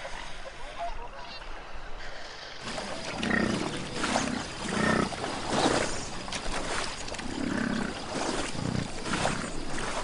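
American bison bellowing: a run of low, rough roars about a second apart, beginning about two and a half seconds in, with a few short higher calls among them.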